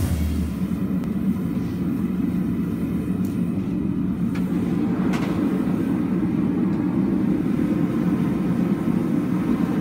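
Steady low roar of a running blacksmith's forge, with a couple of faint light clicks in the middle.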